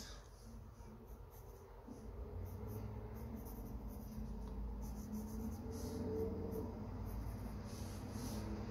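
Graphite from a mechanical pencil scratching and shading on sketchbook paper in short, repeated strokes, with one sharp tap right at the start, over a steady low background hum.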